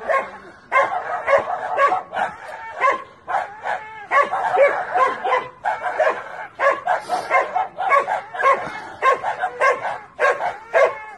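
Small dog yelping and squealing in distress over and over, two or three short cries a second, while a cat holds it by the head in its jaws.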